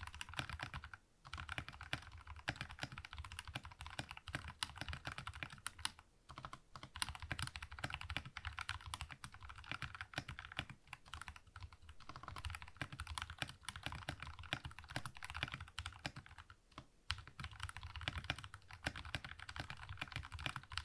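Fast continuous typing on a Redragon K530 Draconic 60% mechanical keyboard with lubed brown tactile switches: a dense stream of key clacks, broken by a few short pauses.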